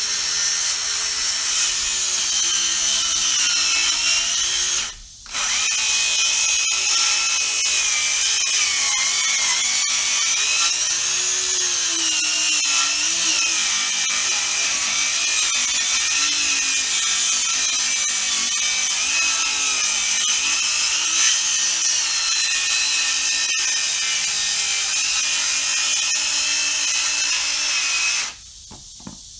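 Cordless power saw ripping a 2x6 board lengthwise. Its motor whine wavers up and down as the blade loads in the wood, stops briefly about five seconds in, then runs on until it cuts off near the end.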